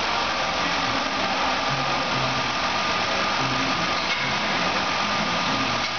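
Mazda Tribute's 3.0-litre DOHC 24-valve V6 running steadily at idle, with a thin steady whine over the engine noise. This is a used engine being run as a test, and it tested good.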